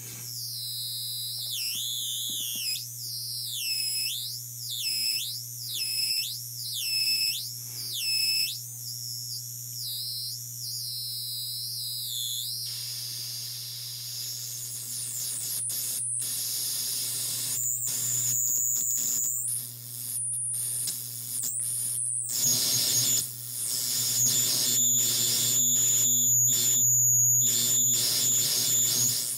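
Handmade circuit-bent noise box (PsCyBr DeKrYpTR) playing over a steady low hum. For about the first twelve seconds it makes high-pitched squealing tones that swoop up and down about once a second. Then it turns to harsh static with high whistling tones that stutter on and off until the end.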